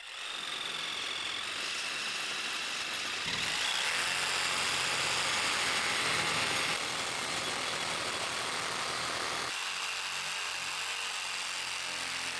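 Compact cordless reciprocating saw running steadily as its blade saws through a dense 3D-printed plastic hammer form, with a high whine that shifts pitch a few times as the load changes.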